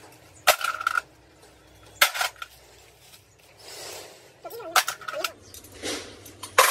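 Sharp metallic clanks of steel tools and parts striking each other during truck differential work, each with a brief ring, coming every second or two.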